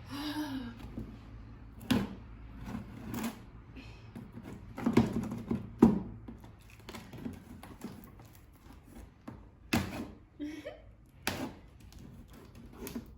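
A cardboard box and its packaging being handled and opened: scattered knocks, thunks and rustles at irregular intervals.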